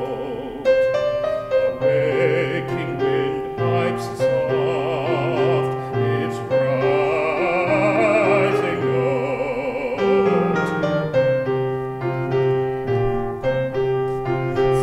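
A man singing an art song in a trained classical style with wide vibrato, accompanied by a grand piano.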